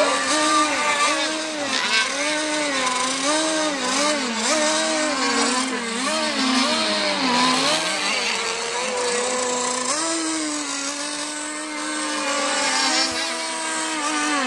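Engines of radio-controlled model hydroplanes racing on a pond, a steady buzzing whose pitch swings up and down about once a second as the boats work through the course, then holds steadier in the second half.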